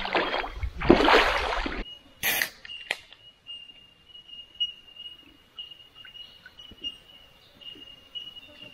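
Water splashing and sloshing for about two seconds as a person moves in a shallow creek pool, followed by a sharp short burst and a click. After that a thin steady high tone carries on faintly in the background.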